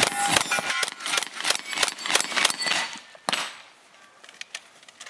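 Benelli M2 semi-automatic shotgun fired in a rapid string at steel targets, with the steel ringing between shots. The shots stop about three and a half seconds in.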